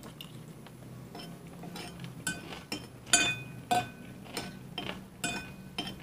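Metal spoon clinking and scraping against a ceramic bowl while eating: about ten irregular clinks, several with a short ringing tone.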